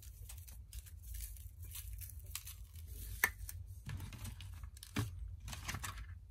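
A seasoning shaker shaken over moose steaks on a paper plate, making a run of small rattling clicks and rustles, with one sharp click about three seconds in. Later comes soft handling noise as the meat is turned over on the plate.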